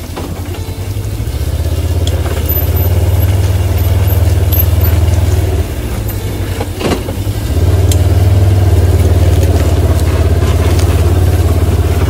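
A vehicle engine running steadily as it drives across the field. It drops in level for about two seconds around the middle, then comes back up, with a single thump about seven seconds in.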